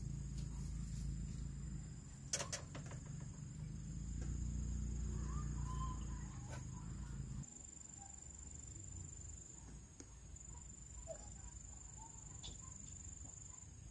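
Insects, likely crickets, giving a steady high trill. A low hum underneath stops abruptly about halfway through, with a sharp click a little over two seconds in and a few faint chirps.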